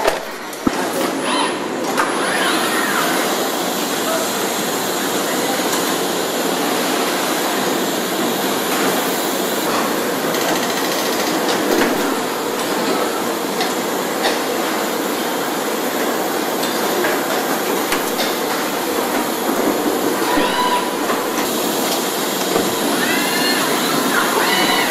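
Car assembly plant floor noise: a steady din of machinery and air, with occasional clanks of tools and metal parts.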